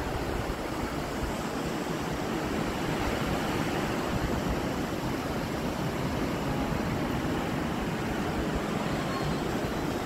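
Steady rush of sea surf breaking on the shore below, mixed with wind, with a low rumble of wind on the microphone.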